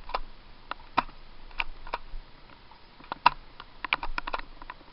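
Irregular short crunches and clicks, about two a second, with one sharper click a little past three seconds in and a quick run of them near the end: footsteps in snow.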